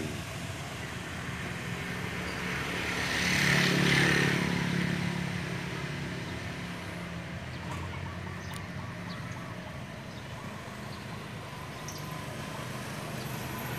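Motor engine noise: a vehicle passes, swelling to its loudest about four seconds in and then fading slowly, over a steady low engine hum.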